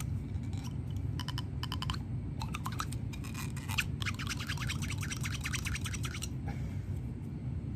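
Quick scrubbing and rubbing strokes while cleaning a Glock pistol barrel: a few short runs of strokes, then a rapid run of about two seconds in the middle, over a steady low hum.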